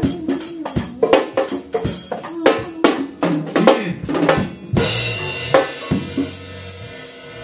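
Drum kit and congas playing a fast groove together, with dense hits for the first few seconds. About five seconds in, a cymbal crash rings out while a few last hits die away.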